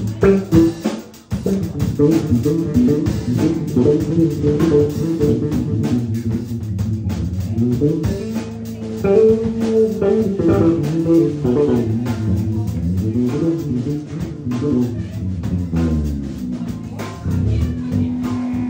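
Live band playing an instrumental passage: a picked banjo with drum kit and bass guitar.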